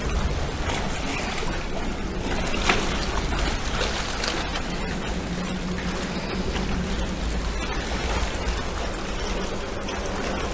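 Small waves washing and trickling against shoreline rocks, over a steady low rumble.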